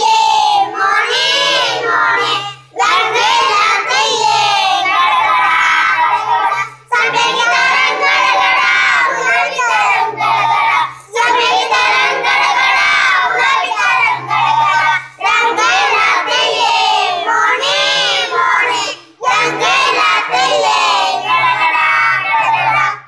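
A group of children singing a song together in phrases of a few seconds with short breaks between them, over a low steady accompaniment. The song cuts off abruptly near the end.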